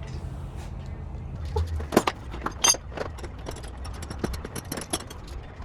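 Irregular sharp clicks and knocks over a steady low hum, the two loudest about two seconds in.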